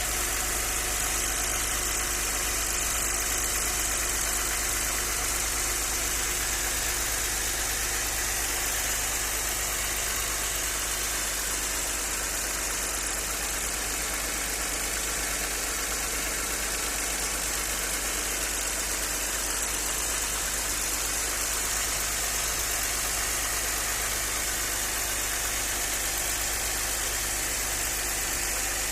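Audi 100 C4's 2.6-litre V6 engine running steadily with a knock, which the owner suspects comes from the hydraulic lifters, spun bearing shells or a connecting rod.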